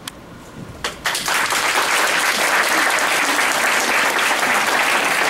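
A roomful of people applauding: a couple of single claps, then the clapping breaks out about a second in and keeps going steadily.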